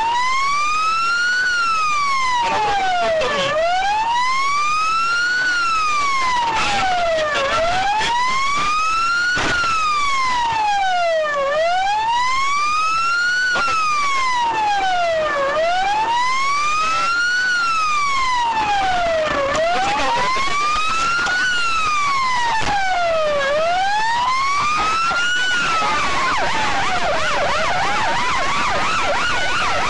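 Emergency-vehicle siren wailing: a slow rise and fall in pitch, about four seconds per cycle, repeating evenly. Near the end a second, much faster warbling siren joins in.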